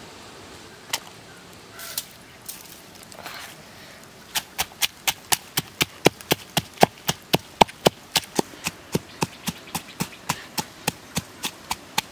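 Pestle pounding red chillies, garlic and salt in a wooden mortar: a few scattered knocks, then from about four seconds in a steady rhythm of about four strokes a second.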